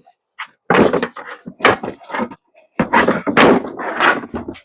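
A stock plastic rear fender flare being pulled off a Jeep Wrangler JK's body: a series of sharp knocks and thumps as it is wrenched free and its retaining pins let go.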